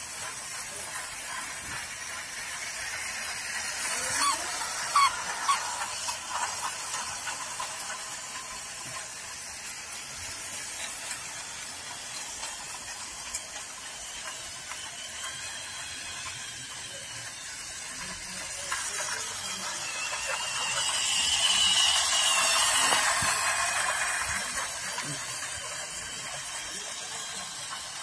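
Toy model train running on plastic track: a steady motor-and-gear whine with wheel rattle, a few sharp clicks about five seconds in, growing loud around three-quarters of the way through as it passes close, then fading.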